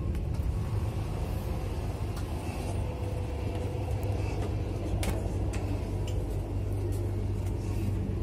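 Steady low rumble and hum inside a Stadler KISS double-deck electric train, with a few faint clicks and one sharper click about five seconds in.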